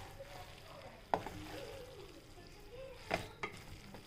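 Wooden spatula stirring and tossing noodles in a frying pan over a faint sizzle, with sharp knocks of the spatula against the pan about a second in and twice about three seconds in.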